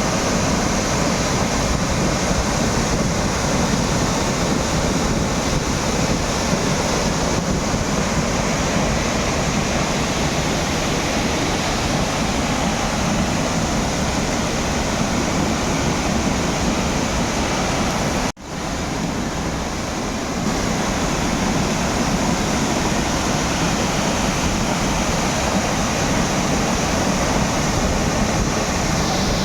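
Waterfall: steady, dense rush of falling water. It cuts out for an instant about eighteen seconds in and comes back slightly quieter for a couple of seconds.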